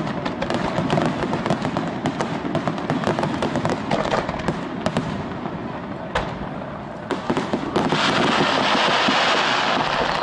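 Aerial fireworks bursting in rapid succession with a dense crackle of many sharp pops, which thin out and quieten about halfway. Near the end a sudden, louder, continuous crackle sets in.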